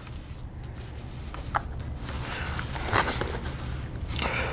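Quiet room with a steady low hum, and a few faint clicks and rustles of small cards being handled at a desk.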